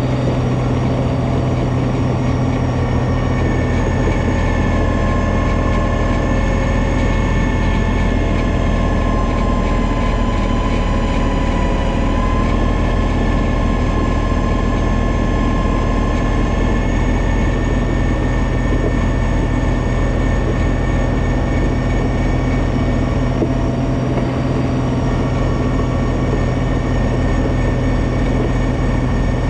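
John Deere 2032R compact tractor's three-cylinder diesel engine running steadily under load, driving a 60-inch front-mounted snowblower that is throwing deep snow. A steady high whine sits above the engine note and dips slightly in pitch about twelve seconds in.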